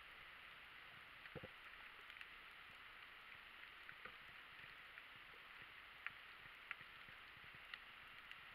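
Near silence: faint underwater hiss picked up by a submerged camera, with a few faint, scattered clicks.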